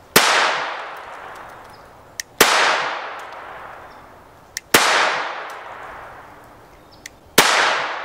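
Four single shots from a Taurus TX22 Competition .22 LR pistol, fired about two and a half seconds apart. Each shot is sharp and echoes away over about two seconds, with a faint click just before each one.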